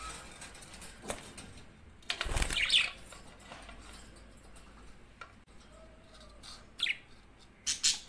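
A budgerigar's wings flapping in a loud burst about two seconds in as it leaves its clay-pot nest, with a short chirp a few seconds later. Near the end, two sharp clicks as a metal spoon touches the pot while lifting the eggs.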